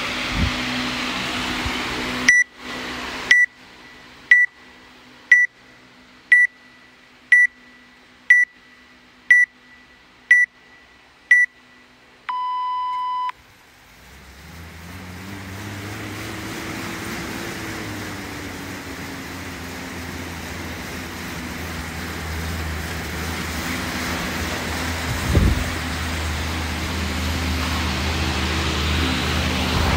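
Workout timer counting down with ten short high beeps, one a second, ending in a longer, lower start tone. Then an air bike's fan wheel spins up and whirs steadily as it is pedalled, with one thud about 25 seconds in.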